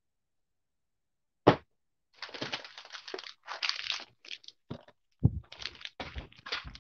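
Sharp click about a second and a half in, then irregular crackling and rustling with a few dull thumps: handling noise from a phone being carried and rubbed about while it records.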